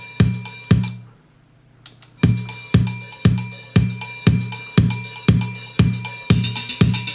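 Music with a steady kick drum, about two beats a second, played through Yamaha YPX500 desktop speakers and picked up by a camera microphone. The music drops out for about a second shortly after the start, then the beat comes back, with busier hi-hat ticks near the end.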